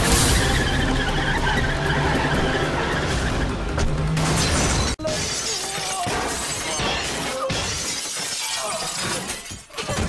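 Glass shattering and scattering as a body crashes through a window, as film fight sound effects. Music plays under the first half and breaks off abruptly about five seconds in.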